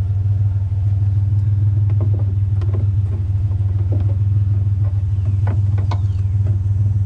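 A truck engine idling steadily, a constant low hum, with scattered light knocks and clicks over it from about two seconds in.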